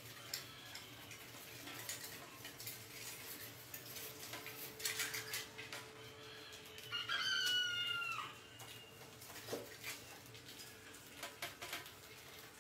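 Rats scrabbling over a wire-mesh cage trap: scattered light clicks and scratches of claws on wire. About seven seconds in, an animal gives one drawn-out call lasting about a second, falling slightly in pitch.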